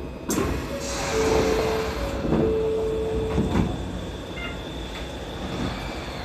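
Shonan Monorail car's sliding doors closing at a station stop, with a steady two-tone chime alternating between a higher and a lower note for about three seconds. There is a sharp clatter as it begins, and knocks near the end of the chime.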